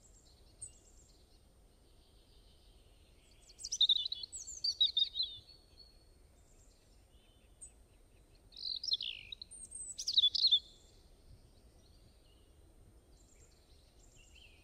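A songbird singing two short phrases of quick, high chirping notes a few seconds apart, with faint scattered calls between them.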